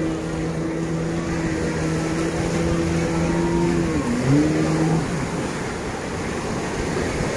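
A motorboat engine running at steady revs; about four seconds in its pitch dips and comes back up, and it stops near the five-second mark. Surf wash runs underneath.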